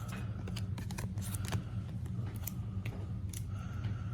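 Trading cards being handled and squared into stacks: scattered light clicks, taps and slides of card stock, over a steady low hum.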